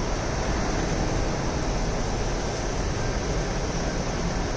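Steady, even rumble and hiss of city street background noise, with no separate events standing out.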